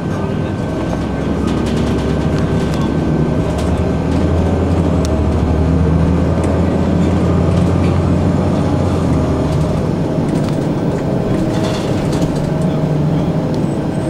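Ride noise inside a 2002 Blue Bird CS transit bus: its Cummins ISC inline-six diesel drones deep and grows louder from about two seconds in, easing back near ten seconds, over road noise and body rattles, with a thin steady whine throughout.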